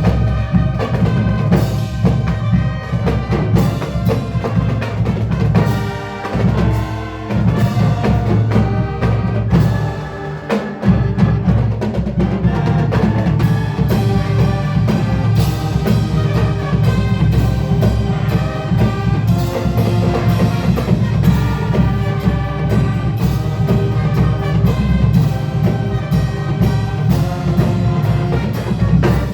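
Marching band playing: brass over a heavy drum section, with the low drums easing off briefly twice in the first third.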